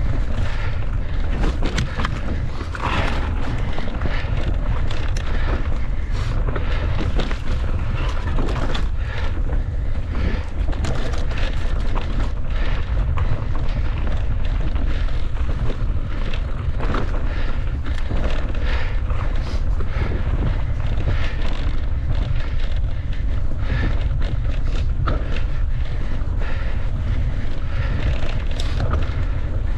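Wind buffeting the microphone over a mountain bike being ridden on rough trail. Irregular knocks and rattles come from the bike running over bumps.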